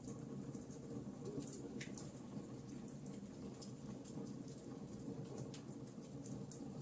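Wood fire in a fireplace crackling, with many small sharp pops at irregular intervals over a steady low background.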